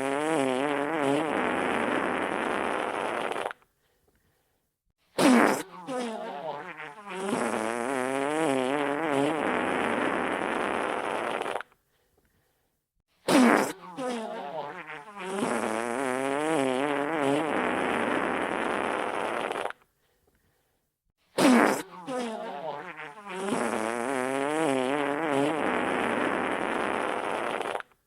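Wet fart sound effect repeating in a loop: each fart opens with a short sharp burst, then runs on as a wavering, sputtering blow of about three seconds before stopping dead. It comes round about every eight seconds, with a gap of silence between.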